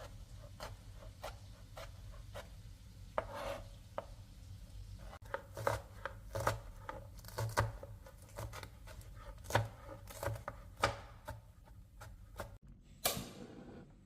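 Kitchen knife chopping food on a cutting board: irregular, quick strokes, with one longer stroke near the end.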